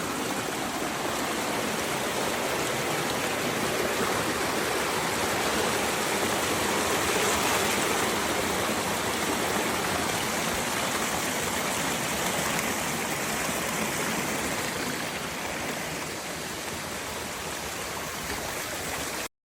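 Waterfall: a steady rush of falling water, a little louder in the middle and easing slightly near the end.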